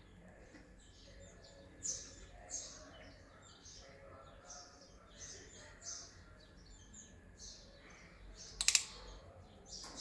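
Lovebirds chirping in an aviary: a scatter of short, high chirps and tweets, with one louder, sharper burst of calls near the end.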